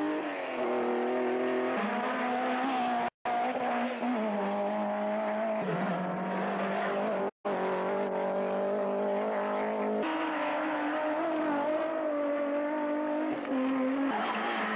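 Rally car engines running hard as cars come up the stage, the engine note holding and then stepping down or up several times as gears change. The sound cuts out completely twice, for an instant each time.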